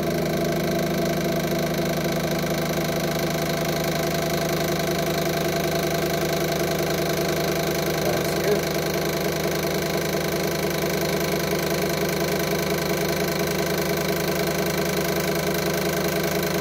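Built-in pump of a Regeni RG260 smartphone assembly press running with a steady hum as it builds pressure.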